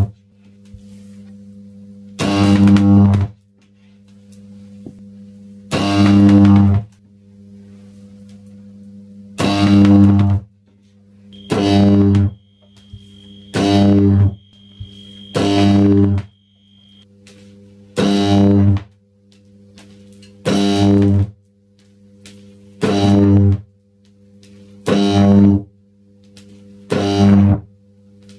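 High-voltage arcs from eight microwave oven transformers run with resonance capacitors, struck again and again: each arc is a loud mains buzz lasting about a second. The arcs come about every three to four seconds at first and about every two seconds later, with the transformers humming steadily in between.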